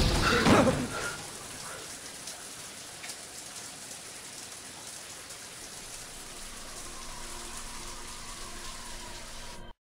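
Shower spray running, a steady even hiss of falling water. A loud sound dies away in the first second, and everything cuts off abruptly just before the end.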